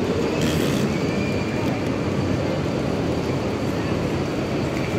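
Steady ambient din of a busy railway station concourse: indistinct crowd voices and general hall noise, with a short hiss about half a second in.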